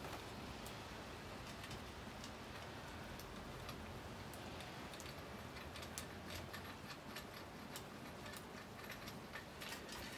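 Scattered light clicks and rattles of plastic parts and chain being handled while unpacking a new chainsaw, more frequent in the second half, over a faint steady low hum.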